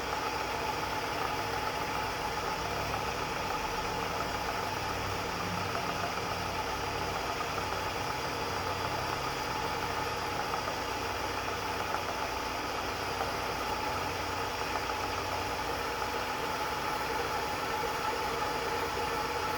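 Milling machine running steadily, its end mill cutting away the leftover piece of a broken stud.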